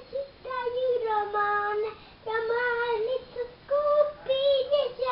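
A young girl singing in three short phrases of held, wavering notes, with a brief pause about two seconds in.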